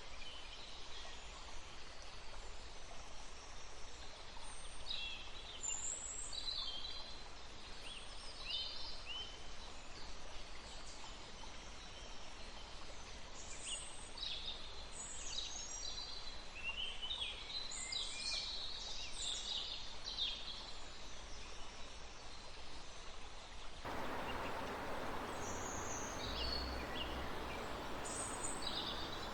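Forest birds chirping and trilling in many short, overlapping calls over a steady rush of flowing river water. About three quarters of the way through, the water rush abruptly becomes louder and fuller.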